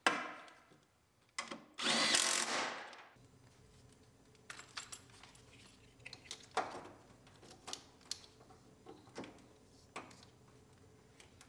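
A handheld power tool runs for about two seconds, driving a bolt down. Scattered light clicks and knocks of parts being handled follow.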